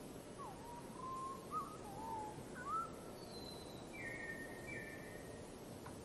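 A songbird whistling: a few slow notes that glide up and down, the second and fourth the loudest, then a thin higher note and two short buzzy phrases, over steady background noise.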